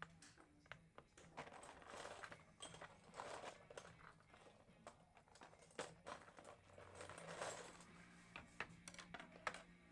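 Plastic toy building blocks being handled: irregular light clicks and knocks with bouts of rummaging clatter.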